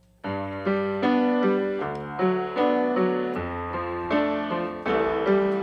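Background music: sustained chords over a low bass note, starting just after the beginning and changing every second or so.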